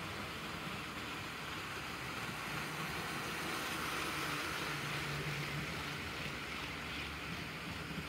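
HO scale model train running on the layout track: a steady rolling rattle of wheels on rails with a low motor hum, growing louder as a train passes close around the middle and easing off afterwards.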